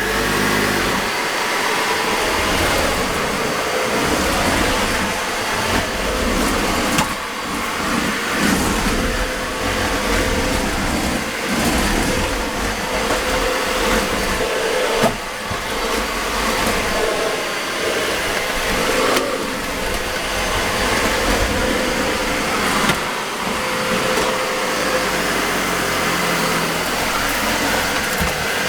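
Dyson Ball Multi Floor upright vacuum cleaner switched on and running at full power, a loud steady motor and airflow noise with a few brief knocks as it is worked over the floor.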